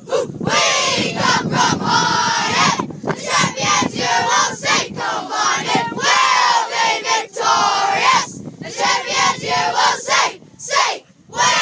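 An under-12 boys' football team singing their club song together in a huddle, loud and in unison, with a short break near the end.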